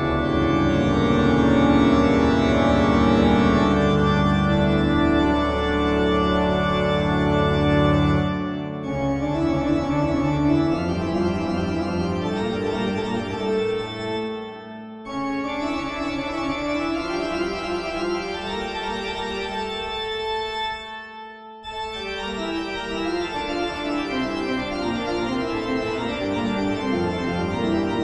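Organ music playing slow held chords, with three short breaks between phrases.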